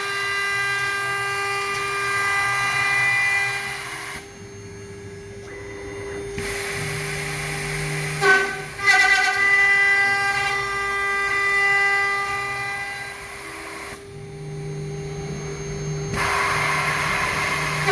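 CNC lock-milling machine's spindle whining as its cutter mills a thermal-break aluminium profile, a steady high-pitched tone with overtones. Twice the upper whine drops away for about two seconds, leaving a lower hum, as the machine pauses or moves between cuts.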